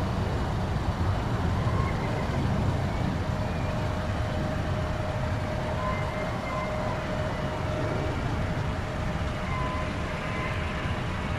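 Steady engine rumble of airport traffic, with a thin steady whine joining about three seconds in.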